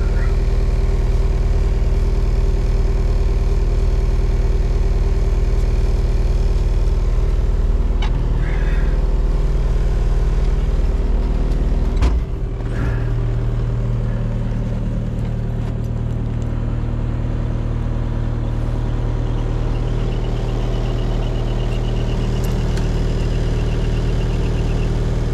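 Vehicle engine running steadily. About halfway through there is a sharp knock, and the engine note then settles into a smoother, steadier hum.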